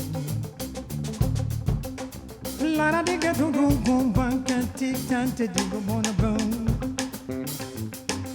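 Live improvised band music: bass notes and a drum kit keeping up steady drum and cymbal hits. A melodic line with a wide, wavering vibrato comes in about two and a half seconds in and drops out around six seconds.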